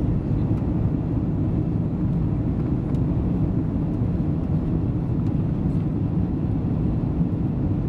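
Jet airliner cabin noise in flight: a steady low drone of engines and rushing air, heard from inside the cabin at a window seat.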